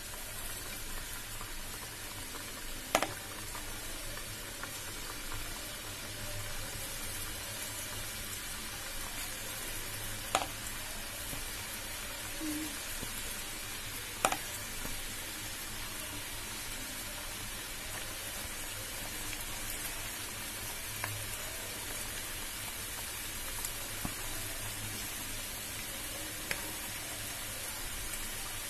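Hot oil sizzling steadily as small balls of ground chana dal batter deep-fry in a pan, with more batter dropped in partway through. A few sharp clicks stand out, the loudest about 3, 10 and 14 seconds in.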